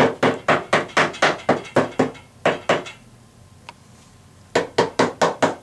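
Hammer tapping a wooden drawer's back panel down into its glued channel to seat it flush: quick light taps about five a second, a pause of about a second and a half past the middle, then rapid tapping again near the end.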